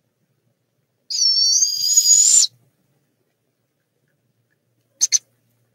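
Barred owl owlet giving its high, raspy hissing screech, the begging call of nestlings, about a second and a half long with a slight upward lift at the end. About five seconds in come two very short, sharp sounds in quick succession.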